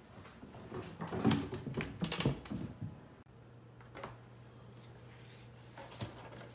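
A run of light clicks, rattles and rustles lasting about two seconds. Then, over a faint steady hum, a couple of soft taps and scratches from a cat pawing at a cardboard box.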